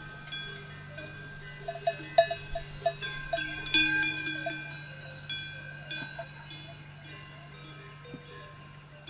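Metal bells ringing: several struck, overlapping ringing tones that fade slowly, with a quick run of short clinks in the second and third seconds, over a steady low hum.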